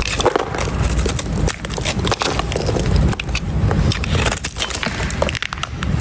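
Dry, crispy soap being scraped: a dense, continuous run of crisp crackling scrapes and small snaps.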